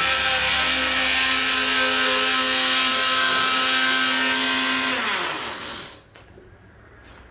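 Small electric blender running at a steady high speed, grinding eggshells. About five seconds in it is switched off and the motor winds down with a falling pitch, followed by a couple of light clicks.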